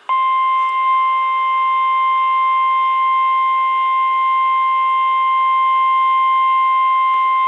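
NOAA Weather Radio 1050 Hz warning alarm tone: one loud, steady, unbroken beep over faint radio hiss, starting abruptly just after the start. It is the alert tone that announces a warning broadcast, here a severe thunderstorm warning.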